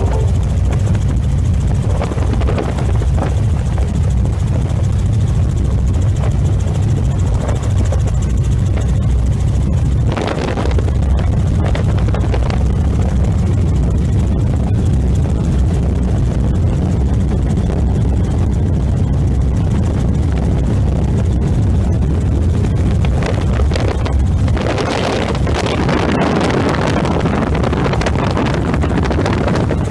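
Helicopter in flight, heard from on board: a loud, steady low drone of rotor and engine, with a rushing hiss that grows over the last few seconds.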